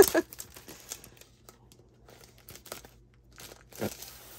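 Faint, intermittent rustling and crinkling of paper packaging as a mail order is unwrapped and its contents handled, with one brief louder sound near the end.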